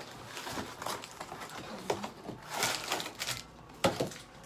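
A cardboard box of individually wrapped granola bars being opened and emptied onto a plate: cardboard and plastic wrappers rustling and crinkling, with a sharp knock a little before the end.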